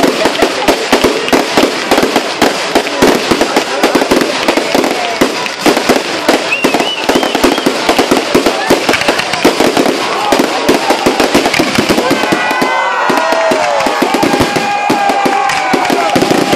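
Fireworks display: a dense, rapid barrage of bangs and crackles from aerial shells bursting and ground fountains spraying sparks. In the second half, rising and falling tones run over the bangs.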